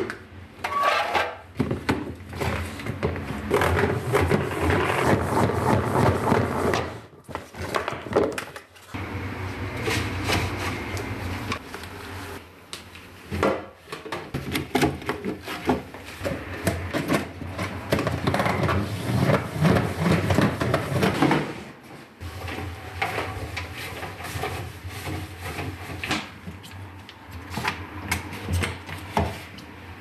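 Plastic kitchen containers, a salad spinner and a clear herb-keeper box with a perforated insert, handled with rubber gloves: continual clattering, knocking and rubbing of plastic, with a few brief pauses.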